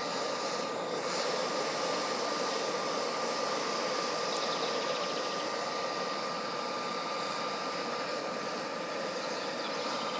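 Homemade charcoal melting furnace running hard: a steady rushing roar of air and fire with a thin, unbroken whine above it.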